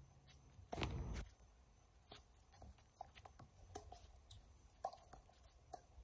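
Tennis rally on a hard court: a louder burst about a second in as the serve is struck, then a scattering of faint sharp pops and taps from ball hits, bounces and shoe scuffs.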